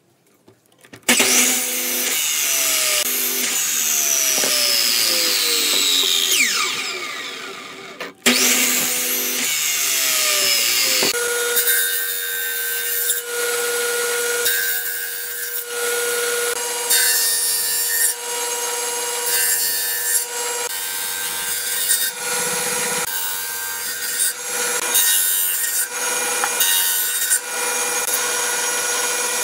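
A circular mitre saw starts and cuts through a wooden board, then its motor spins down. After a break, a table saw runs with a steady hum while a long board is ripped along its length. The cutting noise rises and falls repeatedly as the wood is fed through the blade.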